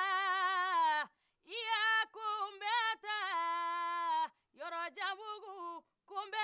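A woman singing unaccompanied, holding long notes with a wide vibrato. Her song runs in several phrases broken by short pauses.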